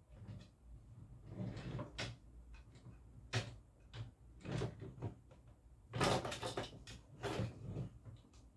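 A drawer in a white chest of drawers knocking and rattling as a cat paws at it and pulls it open. There are a series of separate knocks, and the loudest, longest clatter comes about six seconds in.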